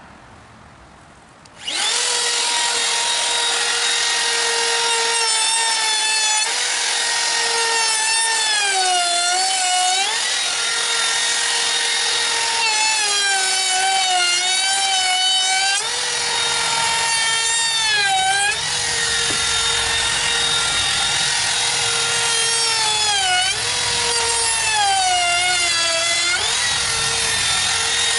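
Compact trim router switched on about two seconds in, then running with a high whine while rounding over the edges of a pressure-treated pine beam. The pitch sags repeatedly as the bit bites into the wood and recovers between passes.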